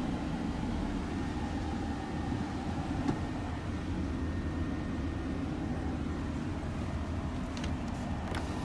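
Isuzu Giga truck's diesel engine idling, a steady low rumble heard from inside the cab. A sharp click about three seconds in and a few light clicks near the end.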